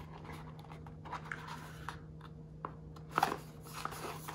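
Small cardboard box being handled on a tabletop: light scrapes and taps, with a louder scuff about three seconds in.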